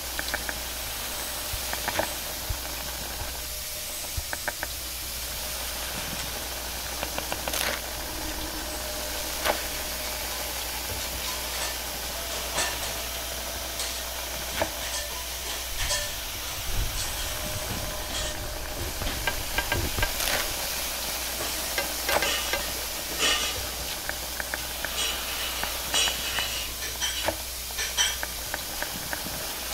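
Noodles sizzling in a wok over a steady hiss, with a metal spatula and ladle scraping and clanking against the pan many times as the food is stir-fried. The clanks come thicker near the end.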